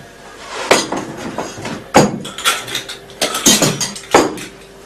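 Crockery and cutlery clattering: about half a dozen sharp knocks and clinks, the loudest about two seconds in, with a faint ringing tone after one of the later strikes.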